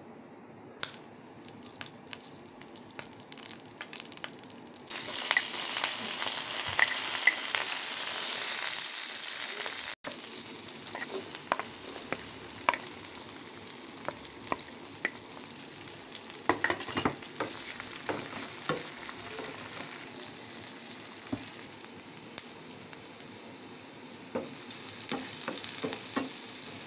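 Mustard seeds spluttering with sharp pops in hot coconut oil in a frying pan. About five seconds in, a loud sizzle starts up as sliced onions, green chillies and curry leaves go into the oil, and it keeps sizzling with clicks of a wooden spoon as they are stirred.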